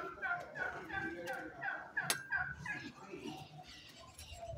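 An animal calling in a rapid run of short falling notes, about four a second, that dies away about two and a half seconds in, with one sharp click near the middle.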